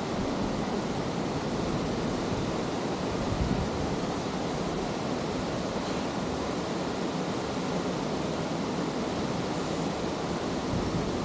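Steady rush of water from a mountain waterfall.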